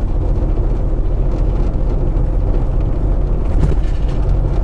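Semi truck on the move, heard from inside the cab: a steady drone of the diesel engine and road noise, heaviest in the low end.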